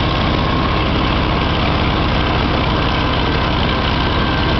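Farmall Cub tractor's four-cylinder flathead engine running at a steady, even pace as the tractor is driven, heard close up from the seat.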